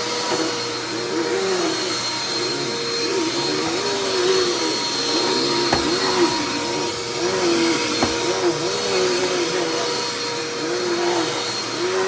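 Dirt Devil Endura Express upright vacuum cleaner running steadily, its motor tone wavering up and down about once a second. Two faint knocks near the middle.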